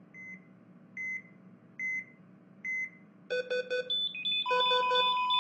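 Hospital patient monitor beeping evenly about once a second, four times. About three seconds in it breaks into a louder alarm of rapid, multi-pitched beeps, and a steady flatline tone joins a second later, signalling that the patient's heart has stopped.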